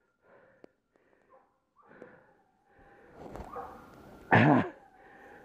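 Undergrowth rustling and crackling as someone pushes through pine scrub, starting about three seconds in, with a single loud short call near the end.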